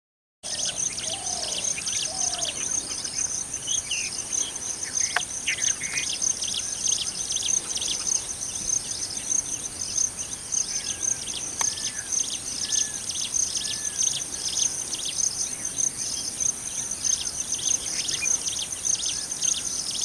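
Insect chorus of crickets or cicadas: a steady, high-pitched whine with a rapid pulsing trill beneath it, starting abruptly about half a second in. A few short, arched bird chirps sound faintly over it, a run of four near the middle.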